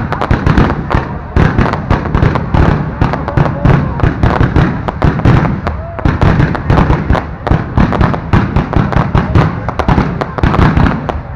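Aerial fireworks bursting close overhead in a dense, continuous barrage of rapid bangs, several a second with no break.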